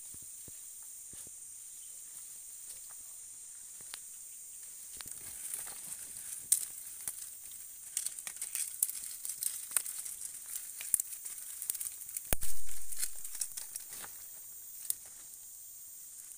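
Small fire of dry sticks crackling and popping, with sticks and dry leaves being handled around it; the pops come thick from about five seconds in. One loud, deep knock about twelve seconds in, over a steady high hiss.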